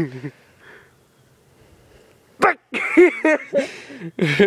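People's voices in short bursts: brief exclamations or mumbled words, with a quieter stretch of a second or two in between.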